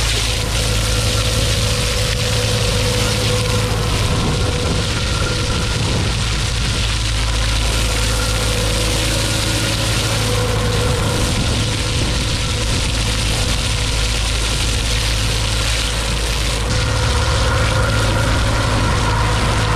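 A hydroseeder's engine and slurry pump running steadily under load, with the hiss of the mulch slurry jetting from the hose nozzle. The engine is a little louder near the end.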